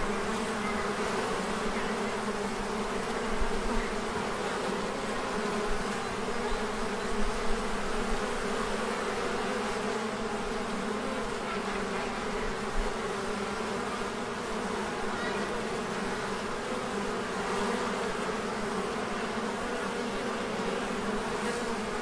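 A beehive's mass of bees buzzing together in a dense, steady drone, with a few brief low bumps now and then.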